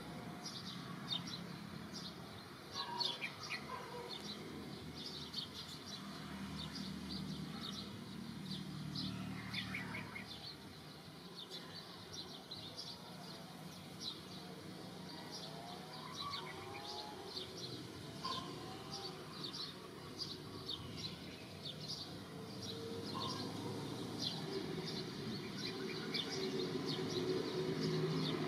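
Birds chirping in quick, continuous short notes, with a few lower gliding calls now and then, over a steady low background rumble.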